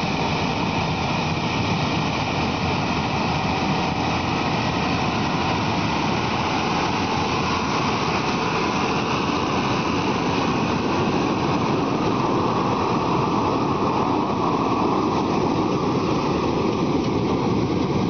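Tractor running while pulling a propane flame weeder, the burners blazing along the crop rows, making a steady, even rushing noise together with the engine.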